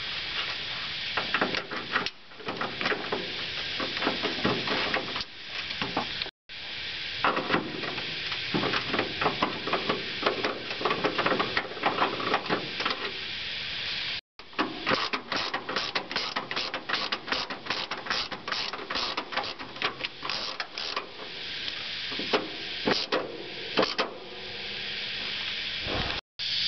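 Hands handling a headlight wiring harness and its corrugated plastic loom: rapid rustling and clicking over a steady hiss, broken by two brief dropouts.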